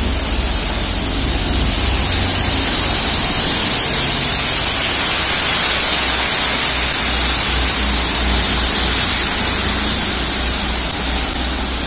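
Rail head treatment train passing close by, its high-pressure water jets blasting leaf residue off the rail heads with a loud, steady hiss over the low rumble of the wagons rolling past.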